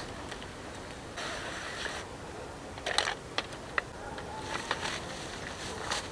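Camp gear being handled: a hatchet taken from a backpack and handled in a canvas cloth, giving scattered sharp clicks and knocks and two short fabric rustles.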